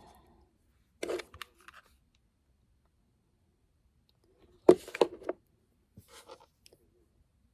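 Small crafting materials being handled, making a few short crackles and clicks in three brief clusters, the loudest about five seconds in.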